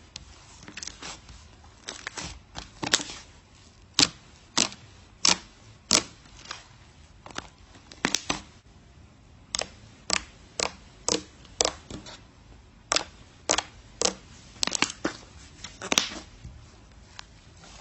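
Slime being squeezed and handled, giving off irregular sharp pops and crackles, roughly one or two a second.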